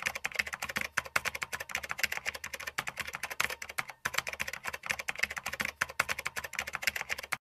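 Rapid, dense clicking and tapping, many clicks a second, like fast typing on a keyboard, cutting off suddenly near the end.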